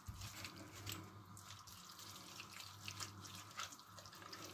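Faint wet squelching and small clicks of hands rubbing a chermoula spice-and-herb marinade into a skinned sheep's head in a glass bowl, over a low steady hum.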